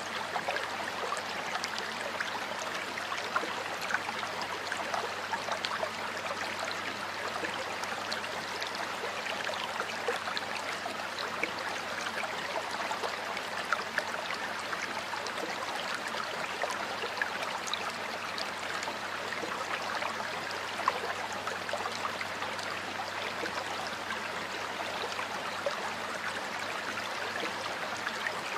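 River water flowing steadily, an even rush with many small splashes and gurgles scattered through it.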